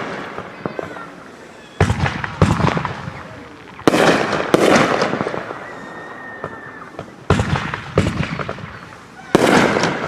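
Consumer firework cakes firing aerial shots: sharp bangs, mostly in pairs a little over half a second apart, coming every two to three seconds. Each bang trails off over a second or more.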